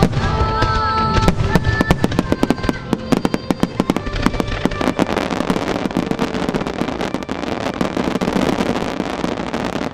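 Fireworks shells bursting in quick succession over music played with the display. From about five seconds in, the bursts give way to a dense, continuous crackle of many small exploding stars.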